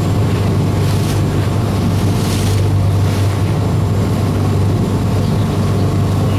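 Ship's engines running with a steady low hum, heard from on board, with wind buffeting the microphone in gusts and the rush of water along the hull.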